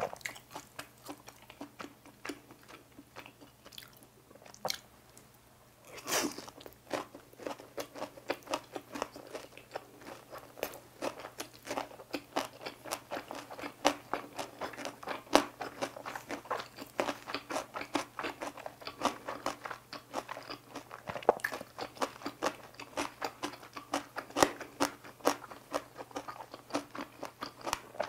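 Close-miked crunchy chewing of cucumber kimbap with boiled pork and kimchi. There is a quieter pause, then a loud bite about six seconds in, followed by steady crunching and chewing.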